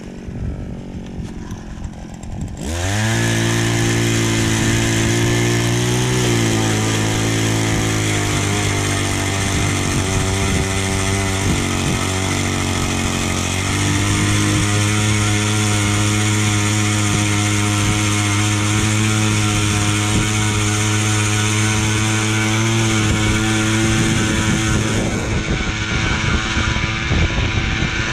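Gas-powered ice auger starting up about two and a half seconds in, revving up and running at high speed as it bores a hole through the ice. Its note shifts about halfway through, then stays steady.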